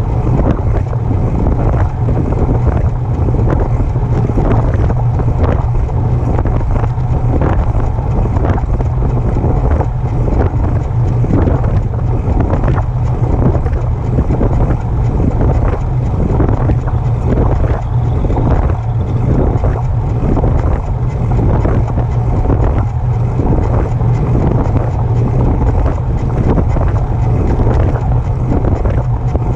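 Specialized Turbo e-bike ridden with wind buffeting the microphone, and a repeating mechanical noise about every two-thirds of a second in time with the pedal strokes: the unwanted noise the bike makes while pedaling.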